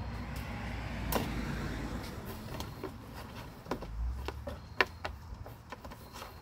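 Small items being handled and rummaged through in a box: scattered light clicks and knocks, a stretch of rustling about a second in, over a low rumble.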